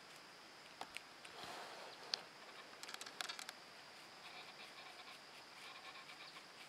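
North American porcupine gnawing and chewing a piece of apple: faint crunching clicks, with a quick run of sharper bites about three seconds in and softer chewing afterwards.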